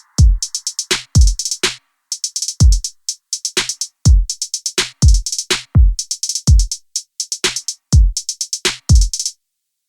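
Electronic background music: a drum-machine beat of deep kicks and fast hi-hat ticks, which stops about a second before the end.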